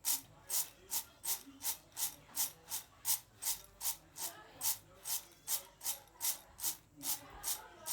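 Dry peanuts being rubbed in a steady rhythm of short scraping strokes, about two and a half a second.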